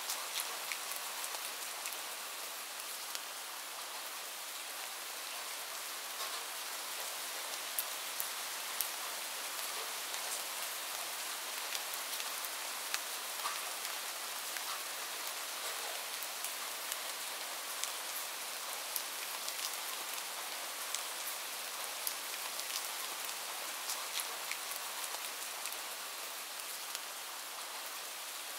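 Rain falling steadily: an even hiss with many scattered sharp ticks of single drops.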